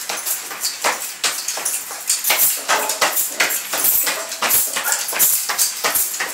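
Shoes stamping and scuffing on a tile floor during skanking dance steps: a quick, irregular run of sharp slaps and scrapes, with a few short squeaks in the middle.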